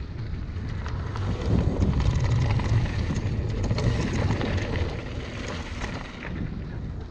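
Wind buffeting the camera microphone over tyres rolling on loose gravel, with the mountain bike's frame and parts rattling on the bumps of a fast downhill run. It gets louder for a few seconds in the middle as the pace picks up.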